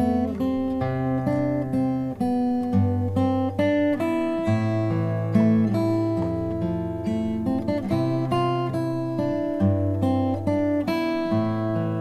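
Background music: acoustic guitar playing.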